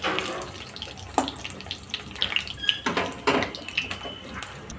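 Potato bread rolls deep-frying in oil in a kadhai on low heat: a steady bubbling and crackling, with a few light clinks of a metal slotted spoon against the pan.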